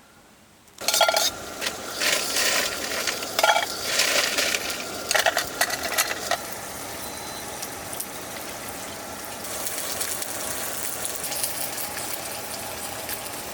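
Food hits a hot pan about a second in and starts sizzling, with utensils clinking and scraping against the pan over the next few seconds, then a steady sizzle.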